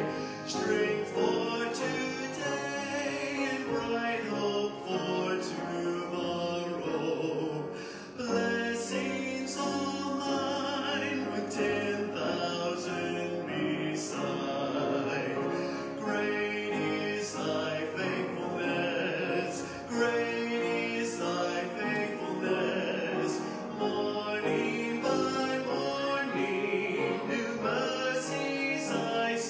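Music: a classical-style sung melody with wide vibrato over sustained instrumental accompaniment.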